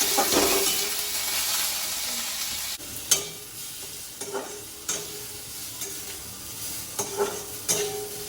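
Potato curry sizzling as it fries in a pan while it is stirred. The sizzle is loud for the first few seconds and then quieter, with the stirring utensil scraping and clinking against the pan about once a second.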